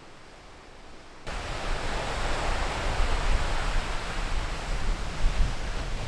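Faint, quiet forest ambience cuts abruptly about a second in to strong wind: a loud, steady rushing with heavy low rumbling where the gusts buffet the microphone.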